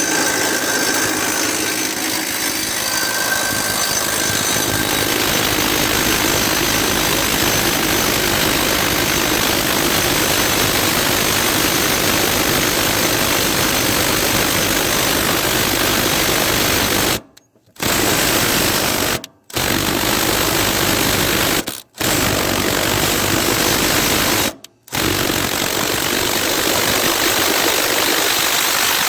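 A riding mower's small Briggs & Stratton engine running steadily at high speed, its sound cutting out abruptly for a moment four times in the second half.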